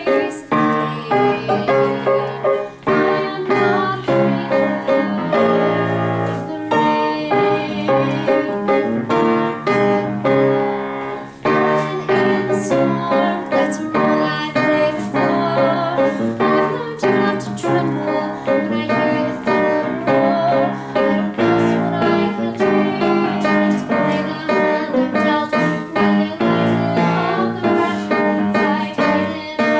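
Piano accompaniment with a woman singing over it, her sustained notes wavering with vibrato.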